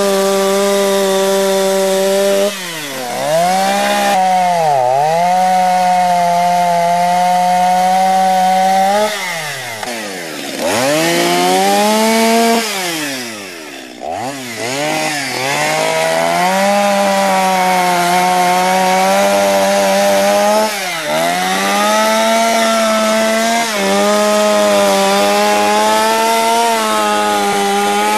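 Chainsaw carving wood, running loud at high revs. Its pitch drops sharply and climbs back about half a dozen times as the throttle is eased and reopened and the chain bites into the wood.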